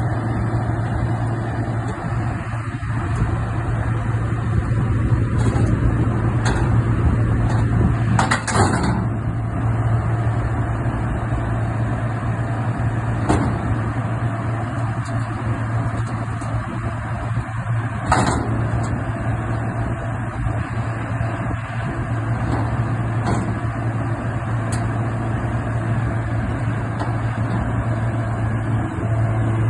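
Old refrigerator running with a loud, steady hum, broken by a few short clicks, the strongest about eight and eighteen seconds in.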